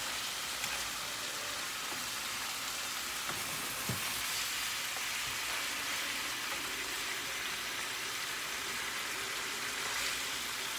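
Ground meat sizzling and frying in a pan on the stove, a steady hiss, with one light knock about four seconds in.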